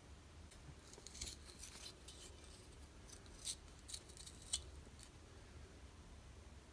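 Rusty folding knife's blade being worked on its pivot and folded shut: a run of faint metal scrapes and clicks, the sharpest near three and a half and four and a half seconds in.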